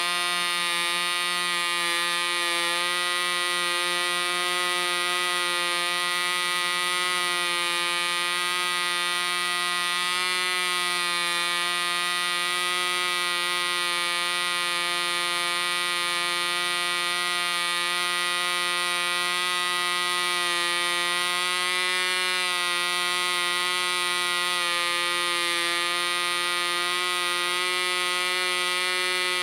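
SAM 35 special edition 0.5cc model diesel engine turning a propeller, running with a steady high-pitched buzz at about 10,700 rpm. Its needle is set just a little rich, backed off from peak.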